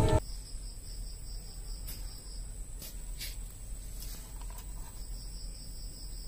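Background music cuts off just at the start. Then a quiet, high insect chirping, an even pulse of about six a second that pauses for a couple of seconds in the middle, over a faint steady high whine, with a few faint clicks.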